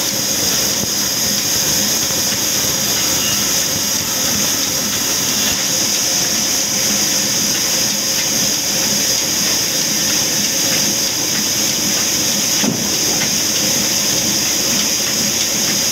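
Band sawmill driven by an old diesel engine, running steadily as its blade cuts lengthwise through a log, with a constant high hiss over the machine noise.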